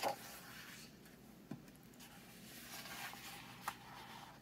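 Faint handling of a picture book's paper pages as one is turned and smoothed flat: a light tap about a second and a half in, a soft paper rustle around three seconds, and another light tap just after.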